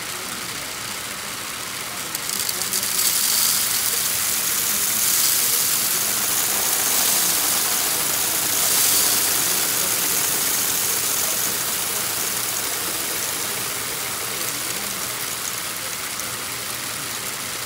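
Motorised Lego rotary dumper turning a loaded railcar over with a steady mechanical hum. From about two seconds in to about twelve, a loud rattling rush of small Lego pieces pours out of the upturned car into the pit, swelling and easing several times.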